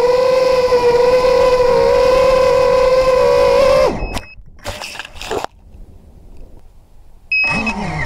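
Brushless motors of a small FPV quadcopter (RMRC Blue Series, 2600 kV) whining steadily in low flight, heard from the onboard camera. About four seconds in the whine cuts off abruptly as the quad goes down into the grass, followed by a few knocks and a quieter stretch, and the motors spin up again near the end.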